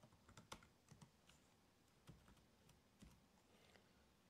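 Faint typing on a laptop keyboard: irregular single keystrokes, a few clicks a second with short pauses between them.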